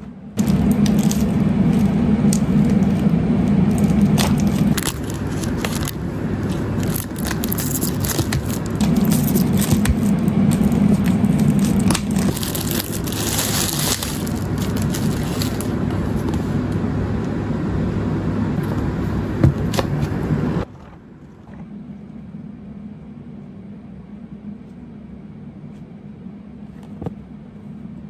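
Packaging crinkling, crackling and scraping as new books are unboxed and unwrapped, with many small clicks. It cuts off abruptly about two-thirds of the way through, leaving a low steady hum with an occasional faint click.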